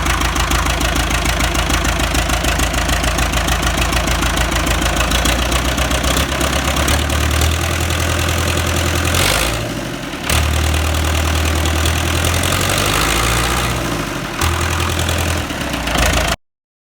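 Ford 6600 tractor's three-cylinder diesel engine running with an even beat, then picking up speed about six seconds in and holding there, with two brief drops in speed before the sound cuts off abruptly near the end.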